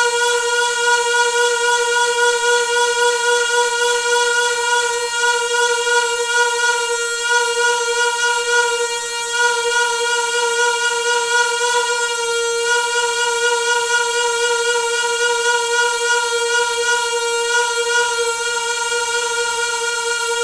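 A noisy household water pipe singing: a steady, high-pitched hum with many overtones, holding one pitch and flickering slightly in loudness.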